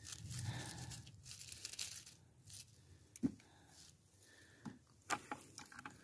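Faint rustling and crackling of forest undergrowth and leaf litter being pushed through, with a few sharp snaps about three seconds in and again near the end.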